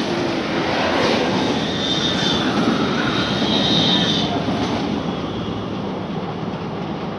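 Electric passenger train passing close beneath and moving away, a steady rush of wheels on rails with a faint high whine. Loudest in the first four seconds, then slowly fading.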